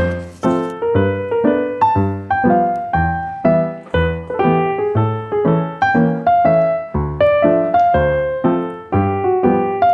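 Background music: a light piano melody with notes struck at a steady, lively pace.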